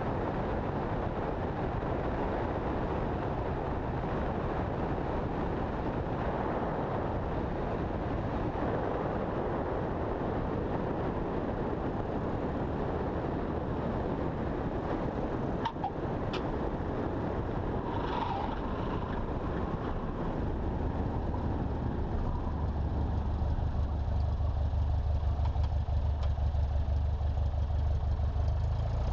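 Cessna 172's engine and propeller heard from a wing-mounted camera under heavy wind rush during the landing approach and touchdown, with a couple of sharp clicks about halfway through. From about two thirds of the way in the wind noise fades and the engine settles into a steady low drone at low power as the plane rolls out on the runway.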